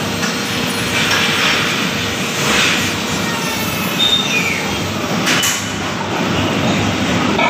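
Newborn piglet squealing while its teeth are ground down with a corded electric tooth grinder, the grinder's motor whirring underneath. There is a sharp click about five seconds in.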